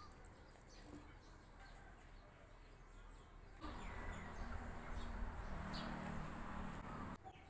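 Faint background of small birds chirping. A little over halfway in, a louder steady hiss with a low hum comes in, and it cuts off just before the end.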